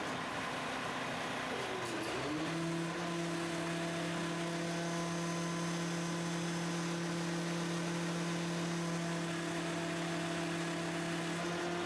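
Quadcopter drone's propellers humming steadily as it hovers, a low hum with a higher overtone that glides briefly and then settles to a steady pitch about two seconds in.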